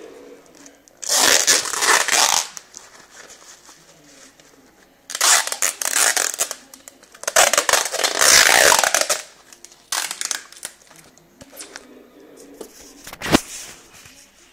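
Handling noise: hands rustling and scraping packing material right at the microphone, in three loud bursts of a second or two, with one sharp click near the end.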